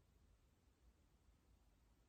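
Near silence: faint steady low room tone with no snore or breath standing out.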